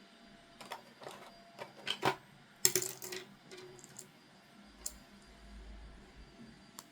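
Small hard plastic toy pieces clicking and clattering as they are handled. There is a cluster of clicks in the first half, loudest about two and a half seconds in, then a couple of single clicks.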